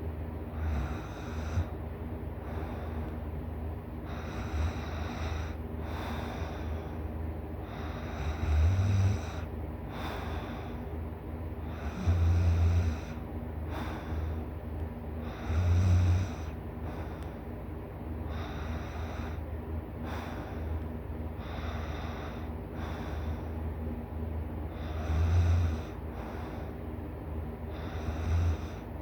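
A person snoring loud and hard in deep sleep, a noisy breath every second and a half to two seconds. Four much louder, deep snorts stand out, spread through the middle and near the end, over a steady low hum.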